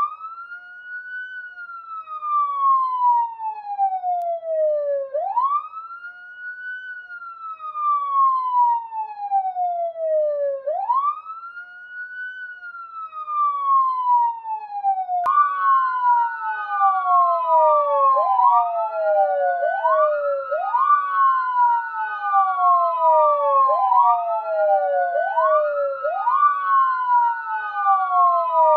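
Police car siren on a wail: each cycle rises quickly to a high note and then falls slowly, about every five and a half seconds. About halfway through a second wail cuts in, out of step with the first, so that the rising and falling notes overlap.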